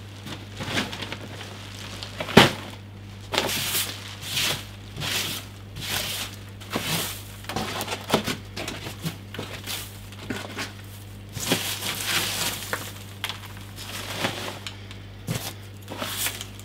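Shredded-paper packing fill rustling and crinkling in a cardboard box as hands dig through it, in a string of short bursts, with a sharp tap a little over two seconds in.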